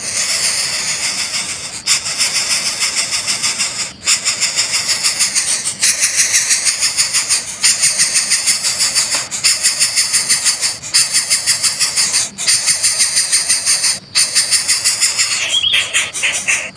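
Coucal nestling begging: a loud, rasping, hissing buzz pulsing several times a second, broken by brief pauses every couple of seconds.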